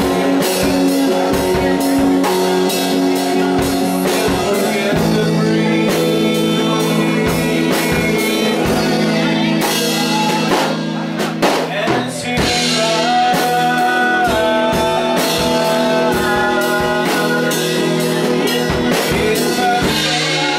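A live band playing, with electric guitar, a drum kit keeping a steady beat, and a singing voice. The music eases for a moment about halfway through, then carries on.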